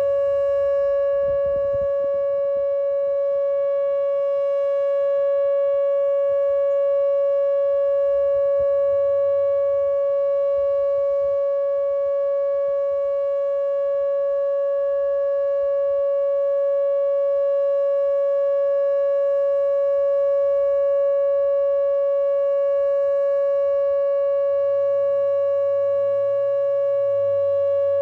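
Whelen WPS-2810 electronic outdoor warning siren sounding a steady tone, held at one pitch without rising or falling.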